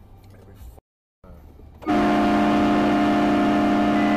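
Vehicle horn blown in one long, steady blast of nearly three seconds, a chord of several notes, starting about two seconds in after low road noise: a warning blast at a car cutting in close.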